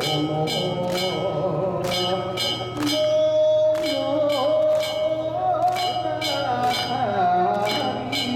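Danjiri festival hand gongs struck in a quick repeating pattern, each strike ringing briefly, with a wavering melody held over them.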